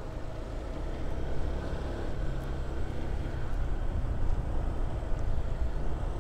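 Motorcycle cruising at a steady speed: engine running under steady wind and road noise.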